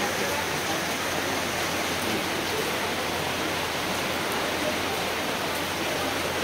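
Strong rain falling steadily, an even hiss with no break.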